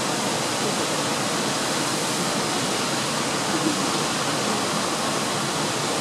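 Siklawa waterfall: a steady, unbroken rush of water falling over rock.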